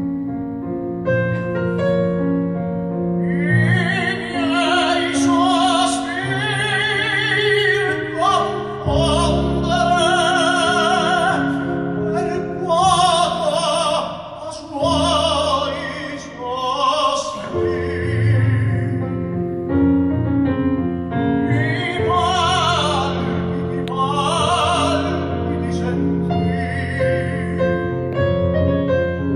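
Operatic tenor singing with strong vibrato in long sustained phrases, accompanied by a digital stage piano.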